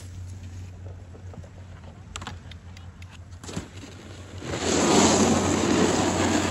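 Snowboard edge scraping over groomed snow as the rider skids to a stop close by: a loud hissing scrape in the last two seconds. Before it, only a low steady background with a couple of faint knocks.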